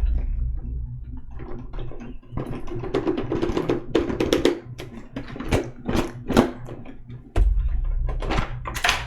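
Irregular clicks, taps and rustling of a cardboard card-deck box and its packaging being handled and opened by hand.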